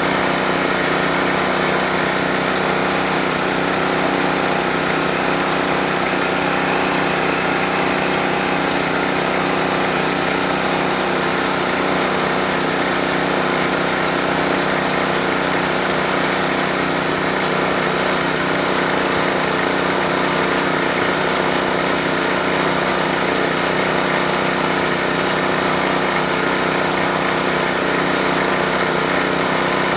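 Small engine of a bore-well drilling machine running steadily at a constant speed.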